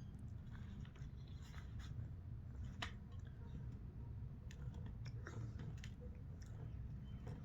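Quiet eating sounds: scattered small clicks and chewing noises over a low steady hum.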